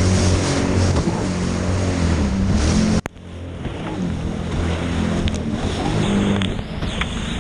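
Sea-Doo Spark personal watercraft's three-cylinder engine running steadily. About three seconds in there is a sharp click and the sound drops away abruptly, then the engine comes back, its pitch rising and falling as the throttle changes.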